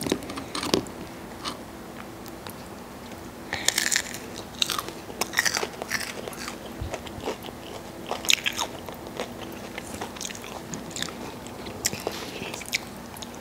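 Close-up bites and chewing of a crispy breaded Wendy's chicken nugget: crunchy crackles that come in clusters every few seconds.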